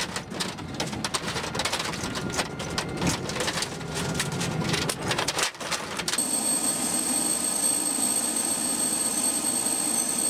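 A linked belt of machine-gun cartridges clinks and rattles as it is pulled over the metal cabin floor. About six seconds in, it gives way to a UH-1Y Venom's turbine engines running with a steady high whine.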